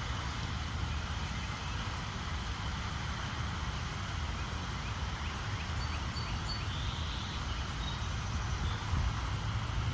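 Steady outdoor background rumble and hiss, with a few faint, short, high bird chirps about six to seven seconds in.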